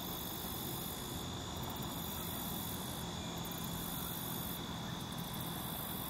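Steady outdoor ambient noise by a pond: an even low hum with a thin, steady high-pitched tone over it, and no distinct events.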